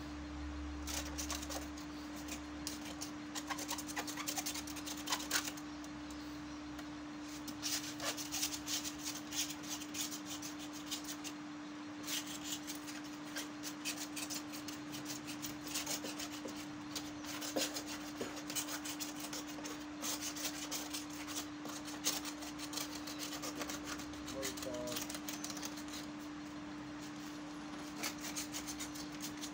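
A hand rubbing and scrubbing the louvred plastic side grille of an evaporative air cooler, giving bursts of scratchy rubbing strokes. A steady low hum runs underneath.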